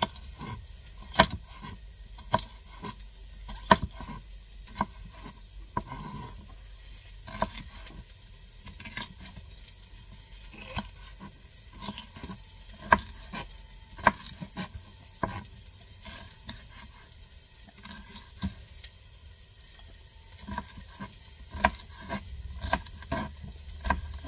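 Chef's knife chopping a green bell pepper on a plastic cutting board: irregular sharp knocks of the blade hitting the board, some in quick runs, over a steady low hum.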